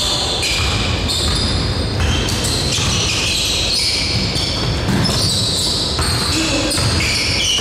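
Basketball game play in a gym: a ball bouncing on the hardwood floor and sneakers squeaking in short, high-pitched bursts, with players' voices in the background. The sound echoes in the large hall.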